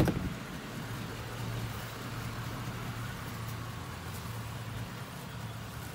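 2004 GMC Yukon Denali's 6.0-litre V8 idling steadily, heard from outside the vehicle as a low, even hum.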